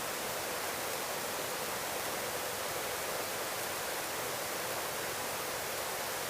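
Steady hiss of helicopter cabin noise through the intercom headset microphone, even throughout, with no rotor beat or engine tone standing out.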